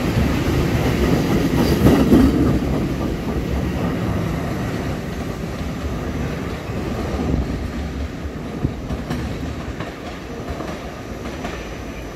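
A train running past on the tracks, loudest about two seconds in and then fading steadily as it moves away.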